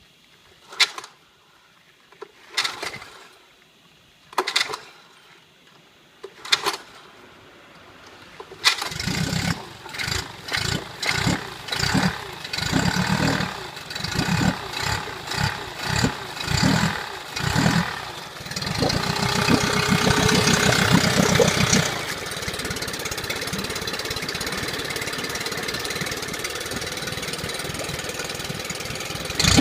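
Yamaha F25 four-stroke manual-start outboard motor being pull-started: four short rope pulls about two seconds apart, then it catches about nine seconds in. It is blipped in uneven surges, held briefly at higher revs, and settles to a steady idle from about 22 seconds.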